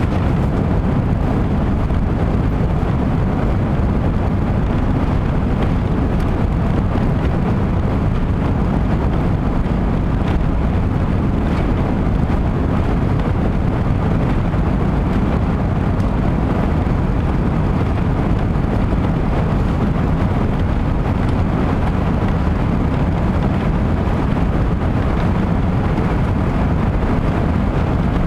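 Steady low rumble of an Airbus A380's Rolls-Royce Trent 900 engines and airflow, heard from inside the passenger cabin.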